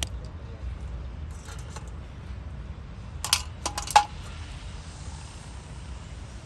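A quick cluster of sharp metallic clinks and knocks about three seconds in, the last one the loudest, over a steady low rumble.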